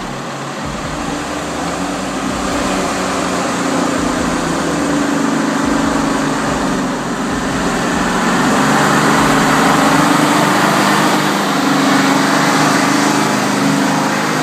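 Engine running hard at high, fairly steady revs, growing louder over the first few seconds and then holding.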